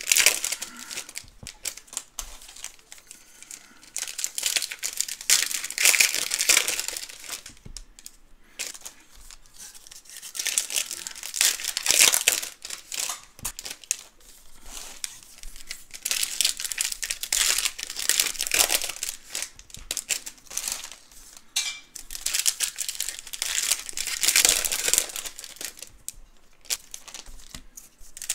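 Trading-card pack wrappers and packaging crinkling and tearing as they are opened. The rustling comes in bursts every few seconds, with quieter handling between them.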